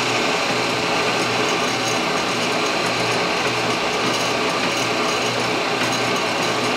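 Belt-driven drive system of an antique lathe running in first gear: motor, V-belts, pulleys and gearbox whirring and rattling steadily, with a low rhythmic pulse.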